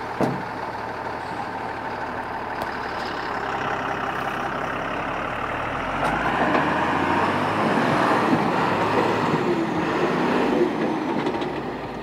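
Loaded Tata tipper truck's diesel engine running, then working harder from about six seconds in as the truck pulls forward over rough dirt. A short thud right at the start.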